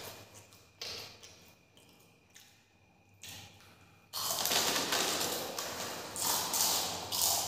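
Crinkling of a foil snack packet and crunching of puffed corn snacks being eaten: a few short crackles in the first seconds, then from about four seconds in a loud, continuous rustle and crunch as the packet is tipped up to the mouth.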